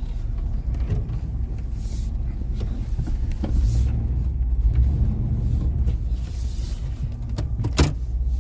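1998 Chevy C1500 pickup's engine running as the truck drives off slowly, heard from inside the cab as a steady low rumble, with a single sharp click near the end.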